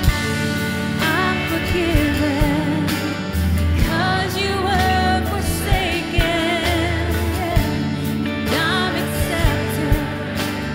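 Church worship music: a sung melody with vibrato over a band with a steady bass line and regular drum hits.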